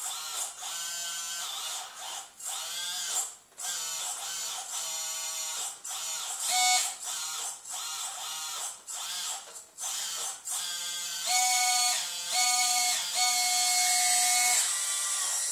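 Small electric motors and gearboxes of a radio-controlled Cat 320C excavator model whining in repeated short start-stop bursts, each rising in pitch as it spins up, as the boom, stick and bucket are worked. Near the end come three longer, louder, steadier whines.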